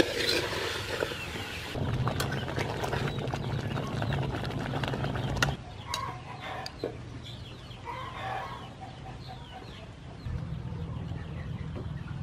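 Domestic chickens clucking, with a rooster crowing. The steady background noise changes abruptly a couple of seconds in, about halfway, and again near the end.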